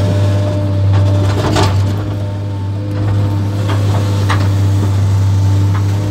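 JCB JS 235 HD tracked excavator's diesel engine running steadily, heard from inside the cab as a loud low drone. A few short knocks and rattles stand out over it as the bucket dumps sand and swings back.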